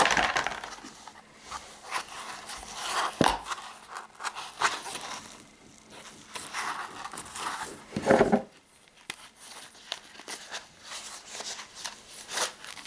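A nylon belt pouch and folding knife being handled: rustling and crinkling, with a few sharp knocks, the strongest about 3 and 8 seconds in.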